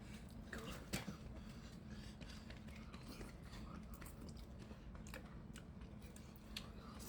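Faint chewing, with scattered small clicks and crunches of someone eating.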